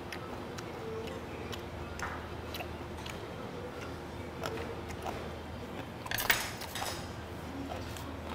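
A person eating fish stew: scattered small clicks of chopsticks and a metal spoon against a metal pot, and chewing. A brief louder noise comes about six seconds in.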